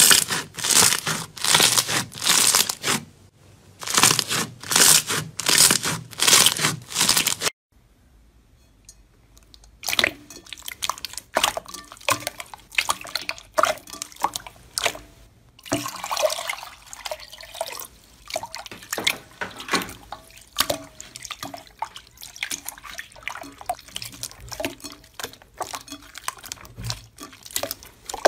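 Hands squeezing slime: first a green textured slime squeezed over and over, about one and a half squeezes a second, then, after a brief pause, a glossy gold slime pressed and stretched with many small wet pops and clicks.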